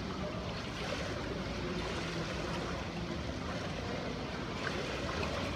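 Steady water noise, with light sloshing and dripping as a person in a wetsuit climbs a pool ladder out of the water.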